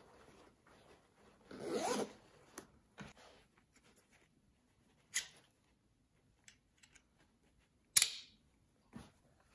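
A belt bag's zipper is pulled briefly, then its plastic side-release buckle gives a few sharp clicks as it is handled. The loudest click comes near the end.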